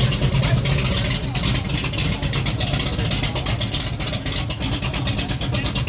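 Chevrolet Monte Carlo drag car's big-block V8 idling roughly through loud exhaust: the choppy, lopey idle of an aggressive racing cam, with an even run of exhaust pulses.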